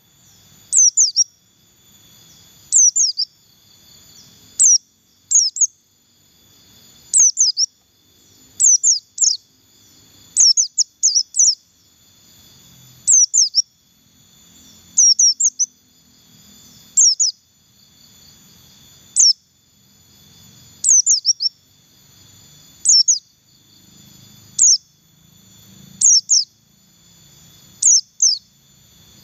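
A caged white-eye of the 'pleci buxtoni' type sings its 'ngalas' song. Short phrases of two to four quick, high, falling notes come about every two seconds. It is a song kept-bird hobbyists use to lure other white-eyes into singing.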